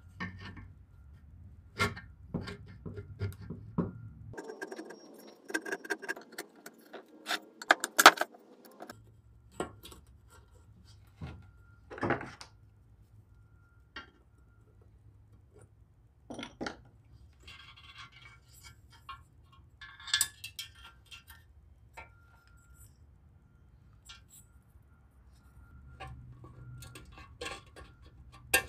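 Metal parts being handled: scattered clinks, knocks and scrapes, with a stretch of scraping from about four to nine seconds in and the loudest knock near eight seconds in.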